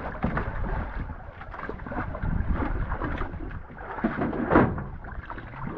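Sea water sloshing and slapping against the hull of a small outrigger fishing boat, uneven and continuous, with one louder slosh about four and a half seconds in.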